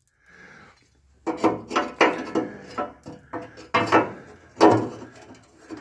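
A wrench working the rusty bolt of a fuel-tank strap as it is loosened: irregular scraping and clicking strokes of metal on metal, starting about a second in.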